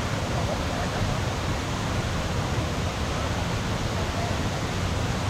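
Steady rush of Grotto Falls, a waterfall pouring water over a rock ledge.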